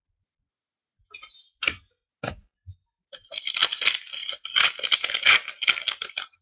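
A few knocks as cards are set down on a tabletop, then the wrapper of a 2015-16 O-Pee-Chee hockey card pack crinkling and crackling as it is torn open, from about three seconds in.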